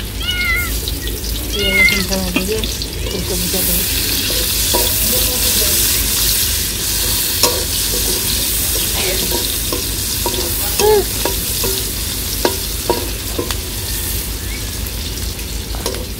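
Chopped vegetables sizzling in hot oil in an iron wok, with a metal spatula clicking and scraping against the wok as they are stirred. A cat meows twice in the first two seconds.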